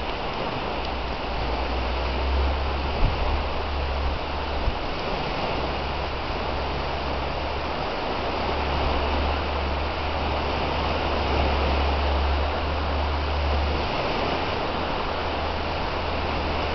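Steady wash of small waves breaking on a lakeshore, with wind rumbling on the microphone.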